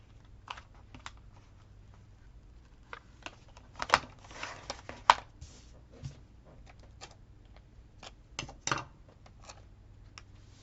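Paper and sticker sheets being handled: scattered light clicks, taps and short rustles as stickers are picked off and pressed onto a notebook page, with louder rustles about four to five seconds in and again near nine seconds.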